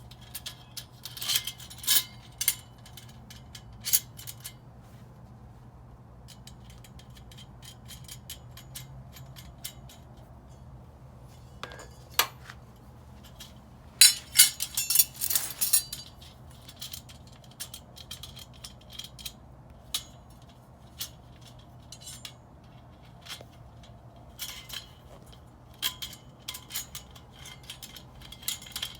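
Parts of a dish drying rack clicking and clinking against each other as it is assembled: scattered sharp knocks, with a busier run of rattling about halfway through, over a steady low hum.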